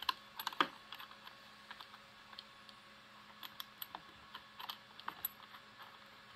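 Light, irregular metal clicks and ticks from a Frankford Arsenal X-10 reloading press as a bolt is started by hand and the indexing cam is wiggled behind it until the bolt threads in.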